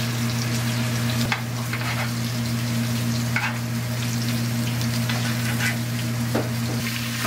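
Bone-in ribeye steak sizzling in hot fat in a stainless steel skillet, with a few short clicks and scrapes of a utensil against the pan. A steady low hum runs underneath.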